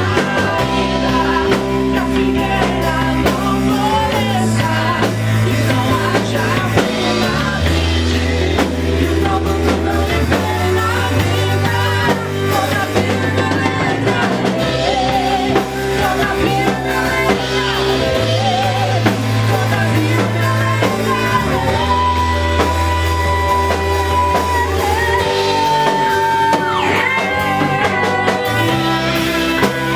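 A live band playing a worship song: a singer's voice over drum kit, guitar and sustained bass notes that change every few seconds.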